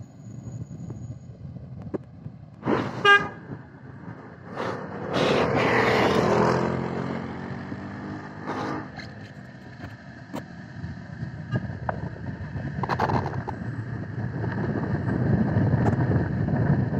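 City street traffic: a steady rumble of vehicles, cut by a short car horn toot about three seconds in, the loudest sound. A vehicle passes close around six seconds, its engine note bending downward.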